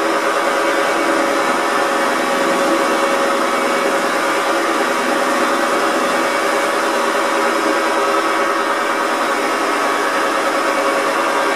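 Wood lathe running steadily while a hand-held turning tool cuts a spinning brass rod, a continuous scraping of the tool on the brass over the machine's steady running noise.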